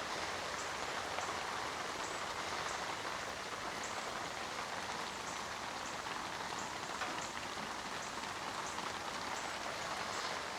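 Light rain falling steadily, an even hiss with scattered ticks of single drops.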